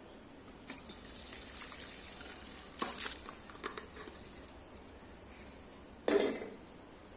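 Hot fish curry being poured from a cooking pot into a stainless steel bowl: a wet sliding and splashing sound for a few seconds, then one louder clunk about six seconds in.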